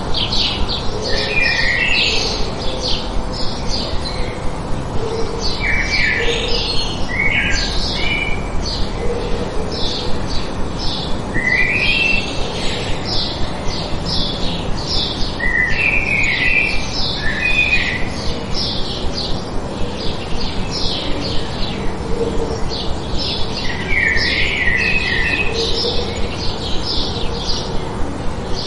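Small birds chirping continuously: short high chirps repeating a few times a second, with bursts of lower, quick chirp phrases every few seconds.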